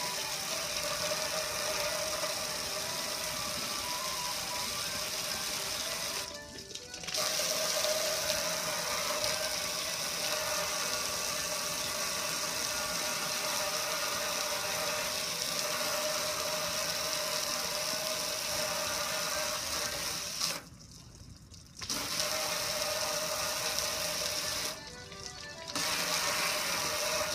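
Pressure washer running steadily, its jet of water spraying onto a metal gas grill and splashing off it. The sound cuts out briefly three times, about six, twenty-one and twenty-five seconds in, then starts again.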